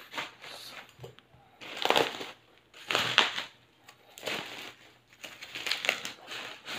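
Bubble wrap crinkling and rustling in about half a dozen short bursts as a wooden snack board is pulled out of its plastic sleeve.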